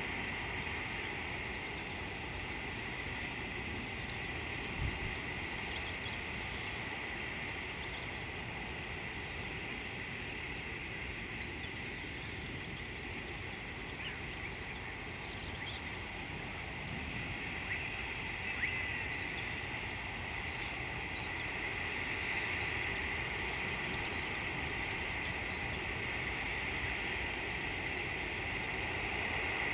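Steady chorus of insects: a continuous high ringing in two pitches, the lower one growing louder past the middle, over a low background rumble. Two faint knocks come about five seconds in and again near twenty seconds.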